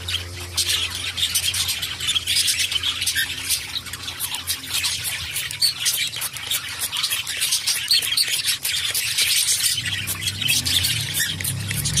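Cockatiels chirping and squawking while being sprayed with water for a bath, over a steady dense hiss and patter of spray water on feathers and perches.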